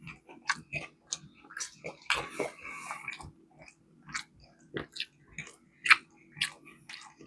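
Close-miked chewing and biting of fried chicken: a run of short, wet mouth clicks and smacks, with a longer crunchy stretch about two seconds in.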